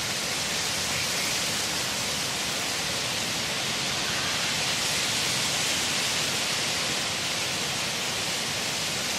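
A steady, even hiss with no distinct events; nothing of the cast stands out above it.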